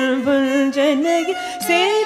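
Carnatic classical music from a ragamalika varnam: a sustained melodic line bending through ornamented glides, with a couple of light percussion strokes.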